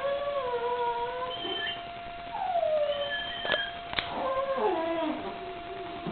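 Dog whining in a series of long, wavering cries that mostly slide down in pitch, from a dog locked in a mating tie with another dog. Two sharp clicks come in the middle.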